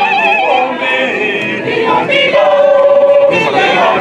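Mixed choir of women and men singing, with long held notes that waver in vibrato and move to new notes about every second.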